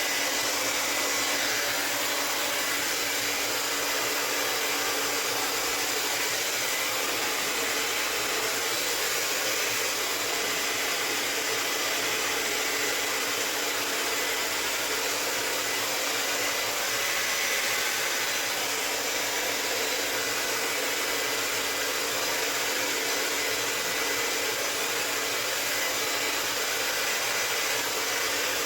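Hair dryer blowing steadily without a break, a rush of air with a faint high whine held on one pitch.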